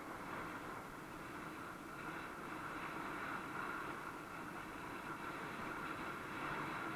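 Steady riding noise from a bike rolling along an asphalt path: tyre hum and air rushing past the bike-mounted camera.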